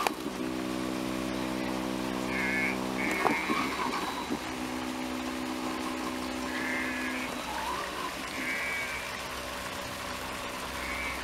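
Homemade ArduMower robot lawnmower's electric drive motors running with a steady hum. The hum breaks off about three seconds in with a knock, starts again a second later and fades out around seven seconds in. Short, high, warbling chirps come and go.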